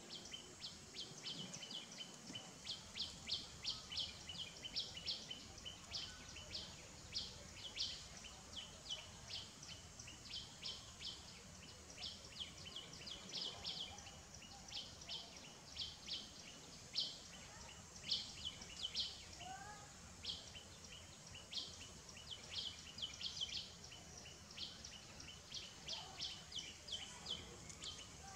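Outdoor wildlife ambience: rapid, high, short chirps, several a second, over a faint steady high tone, with one faint rising call about two-thirds of the way in.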